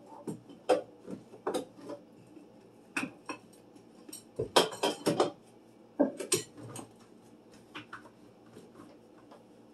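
Household items (bottles, cans, plastic baskets) knocking and clattering as they are set back on the shelves of an under-sink cabinet: a string of irregular knocks, thickest about halfway through and thinning out near the end.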